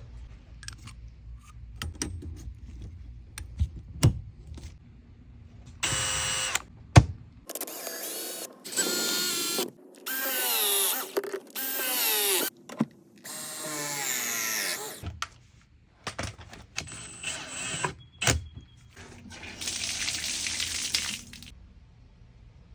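Power drill running in several short bursts, its motor whine rising and falling in pitch as the trigger is squeezed and eased, with scattered clicks and knocks of handling before the first burst.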